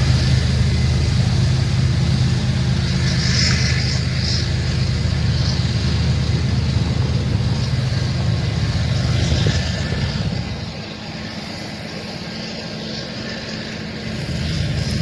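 Slow-moving grain train passing a grade crossing: a steady low diesel drone under wheel and rail noise. The drone drops away about ten seconds in and the sound grows again near the end.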